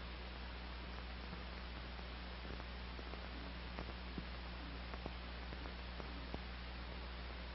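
Steady hiss and low hum with a few faint clicks: the background noise of an old film soundtrack, with no narration or music.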